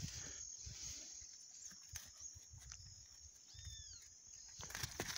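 A young horse breathing and snuffling through its nose close to the microphone, with a short noisy burst near the end.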